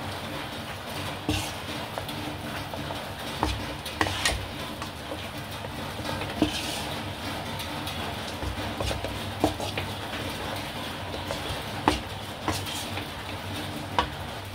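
Wooden spatula stirring and scraping spiced chicken pieces in a nonstick wok, with an occasional sharp knock of the spatula against the pan, over a steady frying hiss.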